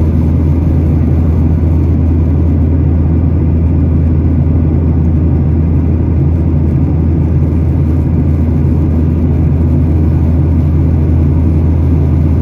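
Steady cabin noise inside a Boeing 737-8 MAX in its climb after takeoff: the CFM LEAP-1B turbofan engines running at climb power, a strong even low hum under a steady rushing of air.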